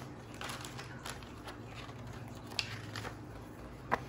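Faint rustling and a few light clicks from plastic doll-crib pieces and packaging being handled, over a low steady hum.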